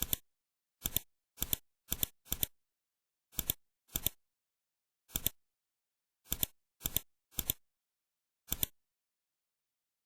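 Computer mouse clicking about a dozen times at an uneven pace, each click a quick press-and-release double tick, with dead silence in between.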